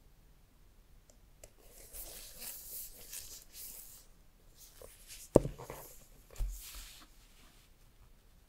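Gloved hands handling an iPhone 12 in its white cardboard box tray: rustling and rubbing of gloves on the box from about two to four seconds in, then a sharp knock and a softer thump a second later as the box is set down on the table.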